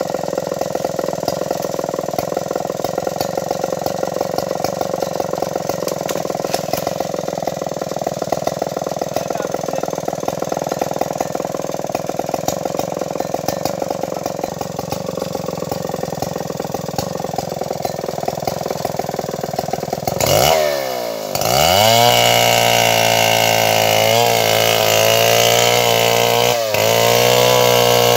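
Stihl 070 two-stroke chainsaw engine running steadily at low revs. About twenty seconds in, the throttle is opened: it revs up sharply and holds high revs, louder, with two brief dips near the end.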